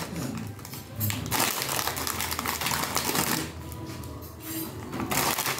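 Hot sauce bottle shaken and tapped over cucumber halves on a plate: runs of quick rattling clicks, densest through the middle, with a shorter run near the end.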